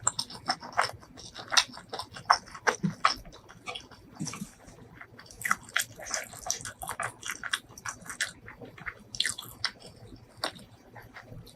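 Close-miked mouth sounds of a person biting and chewing food: a quick, irregular run of wet clicks and smacks.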